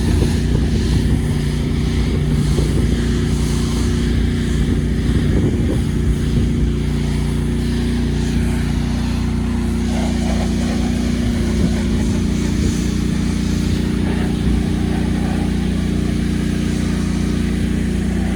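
Pressure washer running steadily, its engine holding a constant drone.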